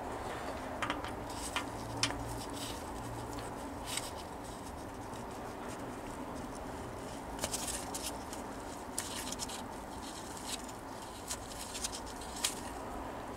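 Scattered small metallic clicks and taps as oiled cam followers are handled and slid into the tappet bores of a Rover V8 engine block, over a steady low hum.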